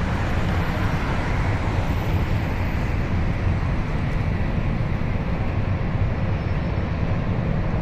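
Jet aircraft engine running steadily at power during a ground engine test, a continuous even rushing noise.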